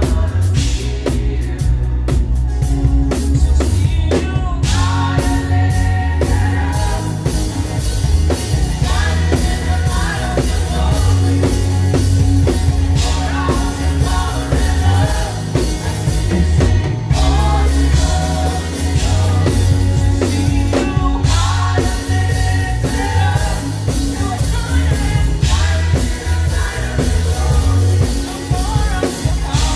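Live praise music: a band playing with a drum kit and heavy bass under singing voices, steady and loud throughout.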